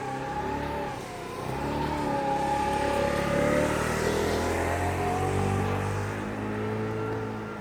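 Fire brigade alarm siren sounding a test alarm, a loud steady wail whose pitch bends gently up and down and eases off slightly near the end.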